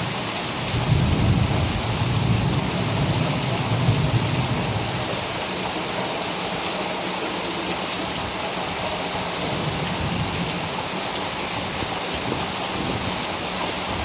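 Heavy rain pouring steadily, an even hiss of falling water. A low rumble swells and fades between about one and five seconds in.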